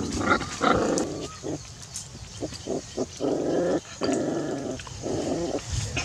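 Puppies calling from a wicker basket in a series of short noisy calls, about half a second each, with brief pauses between them.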